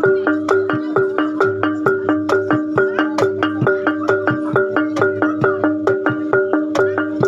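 Gamelan-style music: pitched metal mallet instruments struck in quick, even repeated notes, several a second, over a steady low hum.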